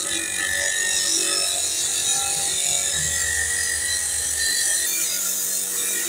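Motor-driven abrasive cut-off wheel grinding through a wire-reinforced hydraulic hose as the hose is cut to length: a steady grinding noise over the motor's low hum.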